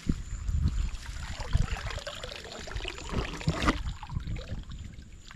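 Wet plastic litter being lifted out of shallow lagoon water and handled over a plastic collection bag: crinkling plastic and dripping water, with low bumps and knocks. The crinkling thickens about one and a half seconds in and cuts off sharply a little before the end.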